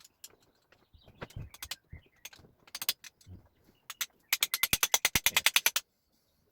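Scattered metallic clinks and knocks of tools on engine parts, then a fast, even run of about twenty sharp clicks lasting a second and a half: a ratchet wrench being worked.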